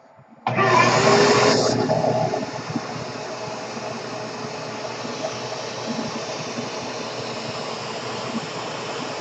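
Vacuum cleaner switched on about half a second in, loudest for the first second or two, then running steadily with a broad whooshing noise.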